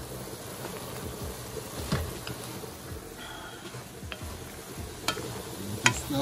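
Ground turkey sizzling in a metal pot while a wooden spoon stirs and scrapes through it, with a few light knocks of the spoon against the pot.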